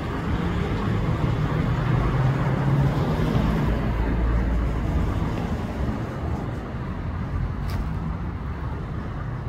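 Road traffic: a car passing on the street, its noise swelling over the first few seconds and fading away.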